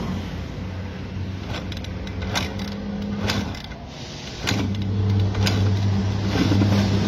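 Yamaha YZ250 two-stroke dirt bike being kick-started over and over without catching, a sharp knock of the kick-starter about once a second: its tank has run dry. A steady low engine hum runs underneath and dips briefly in the middle.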